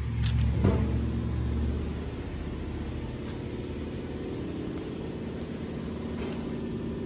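A steady low mechanical hum, louder for the first two seconds, with a couple of light knocks just after it starts.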